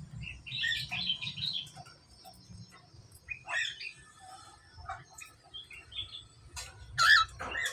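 Budgerigars chirping and chattering in short, scattered bursts, loudest near the end.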